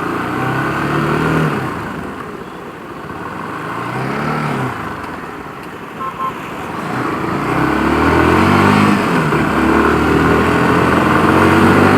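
Motorcycle engine under way, its pitch climbing and dropping several times with throttle and gear changes. Two short beeps come about halfway through.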